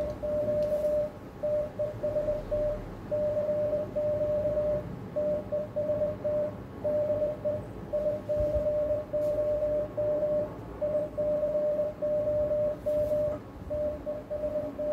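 Morse code sidetone: a single steady tone keyed in dots and dashes without a break, from a transceiver sending CW through an HF linear amplifier under a full-power transmit test.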